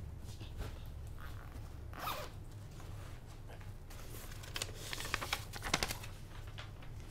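Zipper of a fabric backpack being pulled open, with a quick run of ticking rasps in the second half.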